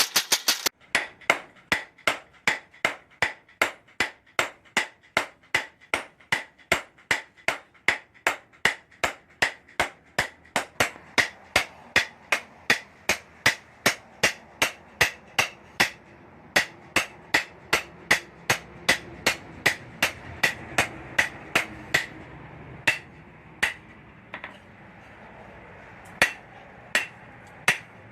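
Hammer blows on hot steel at an anvil while forging a knife blade: steady strikes about two to three a second, each with a short metallic ring. The strikes turn uneven with short pauses in the second half, over a low steady rumble.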